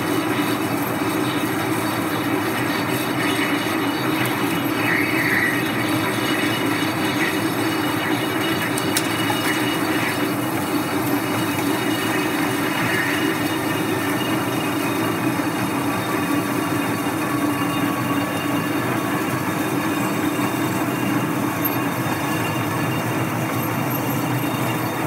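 A 10-horsepower metal lathe taking a heavy roughing cut on the cast flange of a Volvo portal-axle stub axle: a steady cutting and machine noise with a constant low hum under it, holding even throughout.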